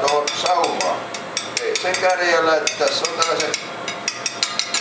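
Rapid light clinks and clicks, several a second, with people's voices talking.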